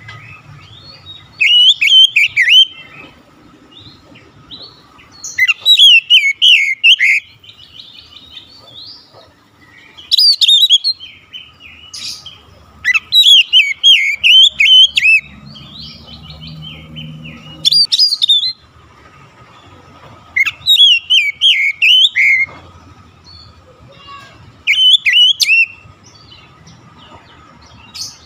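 Male oriental magpie-robin (kacer) singing: loud phrases of rapid, rising and falling whistled notes, each about a second long, repeated every three to four seconds.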